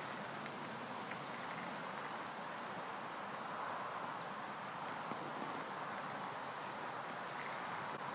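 Steady outdoor hiss of insects calling in the summer air around a pond, without a clear pulse or any distinct event.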